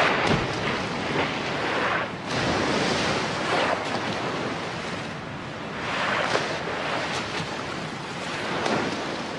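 Sea water rushing and splashing at the surface, swelling and fading in surges every two seconds or so.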